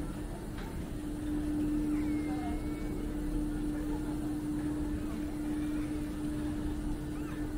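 Steady mechanical hum at one fixed pitch over a low rumble, as from a running lift or vehicle drive.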